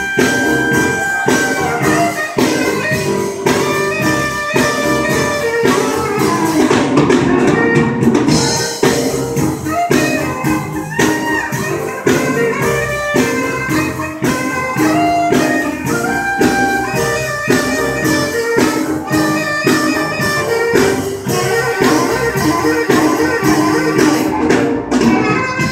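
Live band playing: a saxophone lead over guitar, drum kit and keyboard, with a steady beat of drum hits.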